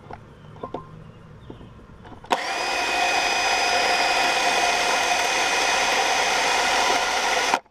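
Cordless drill drilling a pilot hole through a metal rack mounting plate. It starts suddenly about two seconds in, runs at a steady whining pitch and cuts off abruptly just before the end.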